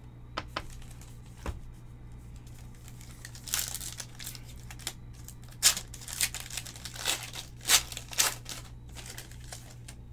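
Foil wrapper of a Panini Chronicles basketball card pack being torn open and crinkled by hand: a run of irregular crackling rustles through the middle, with a couple of sharper snaps.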